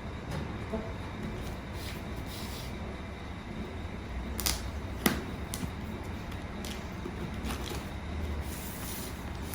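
Packaging being handled during an unboxing: scattered sharp clicks and knocks with a few brief rustles, over a steady low background rumble.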